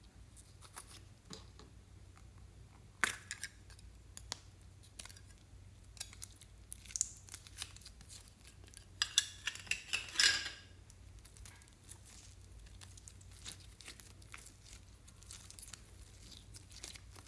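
Sharp plastic clicks and crackles as a lollipop-shaped plastic slime container is opened, then sticky tearing and crackling of thick pink slime being pulled out of its plastic cup and stretched, loudest in a dense run of crackles about nine to ten seconds in.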